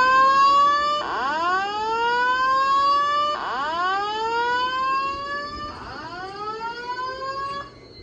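Simplex TrueAlert speaker strobe sounding a rising whoop evacuation tone. Each sweep climbs in pitch for about two and a half seconds, then starts again from the bottom, and the tone stops shortly before the end.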